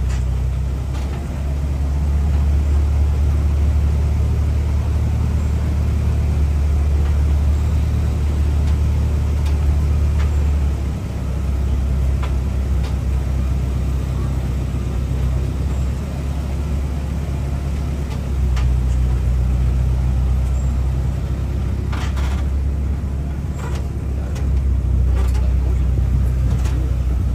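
A motor vehicle's engine running steadily with a low rumble, and a few short clicks near the end.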